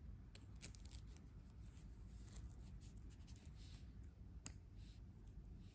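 Faint handling noise as a metal mesh watch band is fastened on a wrist: light rustling with scattered small clicks, the sharpest about four and a half seconds in.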